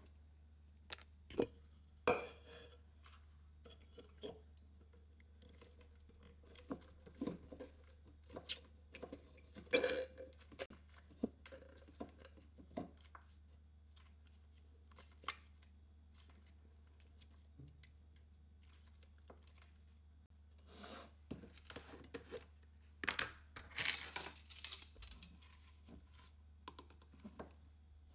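Hands tearing open a paper cream carton, with scattered taps and knocks of containers on a kitchen counter. The busiest stretch of rustling and tearing comes near the end.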